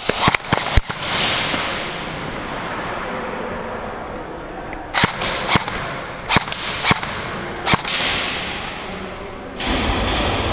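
Airsoft gunfire: sharp cracks, four in quick succession at the start and six more spread between about five and eight seconds in, each trailing off in a long echo through the big warehouse hall. A loud rush of noise starts just before the end.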